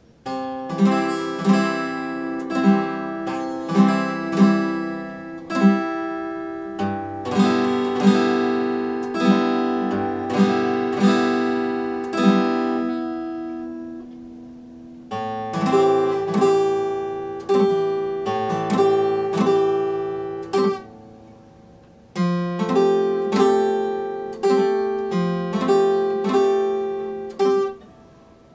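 Epiphone acoustic guitar played solo, chords struck about once a second and left to ring, with no singing. The playing starts right away and pauses twice, letting the chords die away before it resumes.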